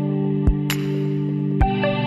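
Background music with sustained mellow tones and a soft beat: two low thumps and a high tick.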